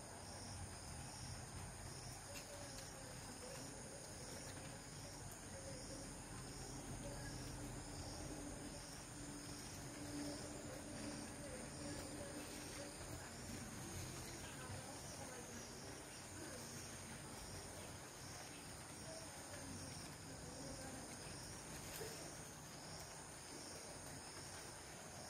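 Faint insect chorus, high-pitched and steady with a regular pulsing chirp. A faint low hum runs under it in the first half.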